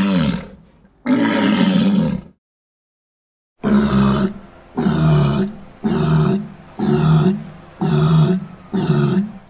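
Pacific walrus calling: two long, deep bellows, then after a short silence a run of six shorter calls, about one a second.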